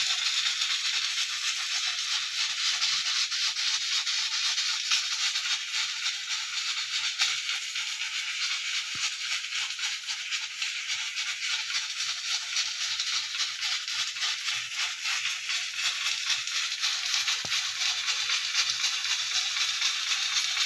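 Pressure cooker releasing steam in a steady hiss, its weight valve rattling rapidly on the vent: the "chok chok" of the cooker at full pressure letting off steam.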